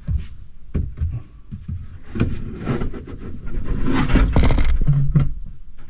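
Knocks, thumps and scraping of the plywood bed platform being shifted and handled. It is an irregular run of bumps and scrapes, loudest about four seconds in.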